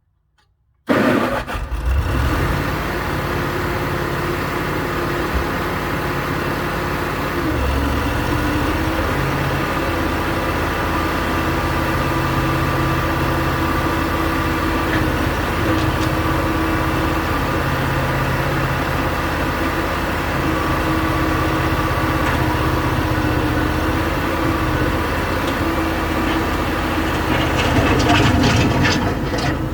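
Bobcat M600 skid steer loader's engine starting about a second in, then idling steadily, a little louder near the end.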